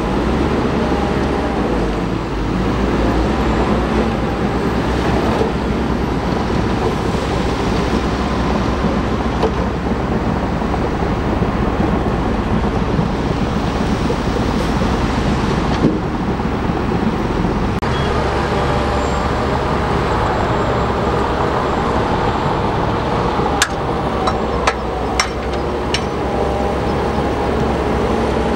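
Heavy bulldozer diesel engine running steadily under load, with a few sharp metallic knocks near the end.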